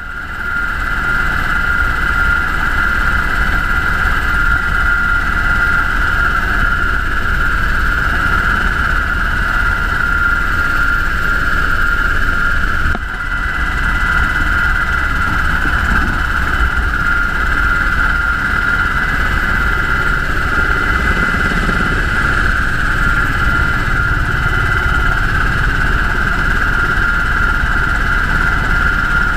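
UH-60 Black Hawk helicopter in flight: a steady, loud rotor and turbine drone with a deep rumble and a constant high whine over it, dipping briefly about halfway through.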